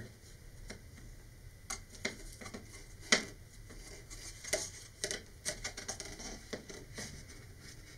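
Light rustling and small clicks of hands handling a paper rocket body tube and tying a shock cord around it, with one sharper tap about three seconds in.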